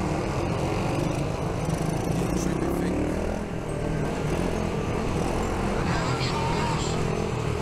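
125cc pitbike engines running at a steady drone as the bikes are ridden around the track.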